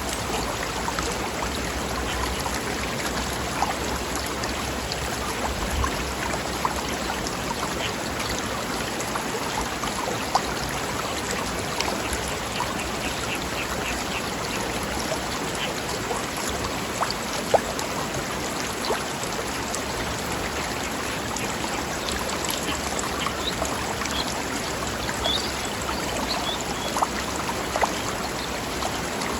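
Forest stream flowing over rocks: a steady rush of babbling water with occasional louder splashes. A few faint bird chirps sound over it, around the middle and later on.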